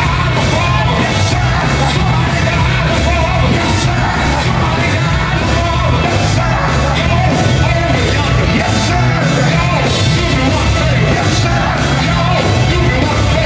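Live gospel group performance: two male singers singing into microphones over a live band with keyboard and drums, loud through the PA, with a steady beat.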